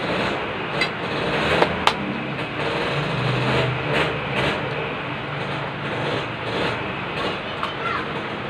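Heavy rain falling, a steady loud hiss, with a few sharp clicks about one and two seconds in.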